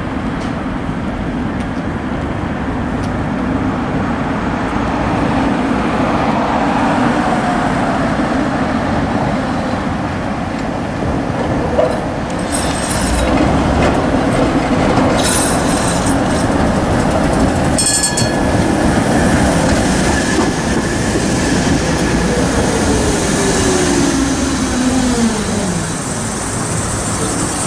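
Coupled pair of Tatra T6A5 trams running round a curve and passing close by, with steady rail rumble and wheel squeal. A few short high-pitched rings come around the middle, and a whine falls in pitch near the end as the trams slow.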